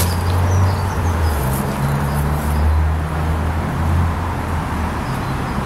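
Steady low rumble of road traffic from a busy roundabout, with engine drone from passing vehicles.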